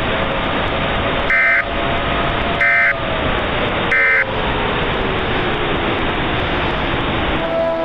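Emergency Alert System end-of-message data tones: three short warbling bursts about a second and a half apart over loud, steady broadcast static, with a faint tone slowly sliding down in pitch. Near the end, orchestral music starts.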